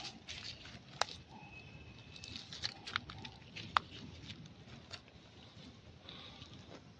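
Faint scattered rustling with several sharp clicks, the loudest nearly four seconds in, and one thin, steady high squeak lasting just under a second, about a second and a half in.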